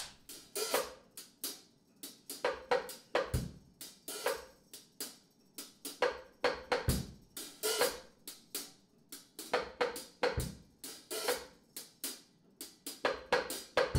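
Drum kit playing a steady beat: quick hi-hat, cymbal and snare strokes, with a deep bass drum hit every three to four seconds.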